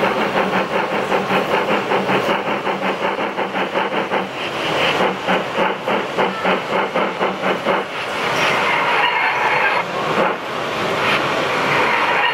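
Gauge 1 model steam locomotive chuffing in a quick, even rhythm as it runs. About eight seconds in the beats give way to a steady hiss.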